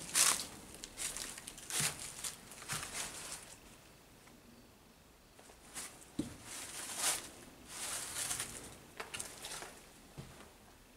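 Slow footsteps scuffing on a gritty floor, a string of irregular steps with a short pause near the middle.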